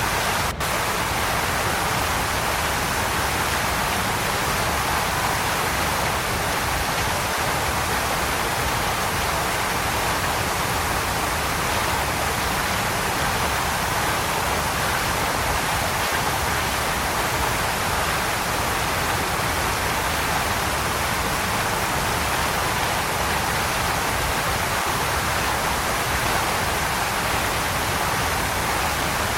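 Waterfall: a steady, unbroken rush of falling water. There is a momentary dropout about half a second in.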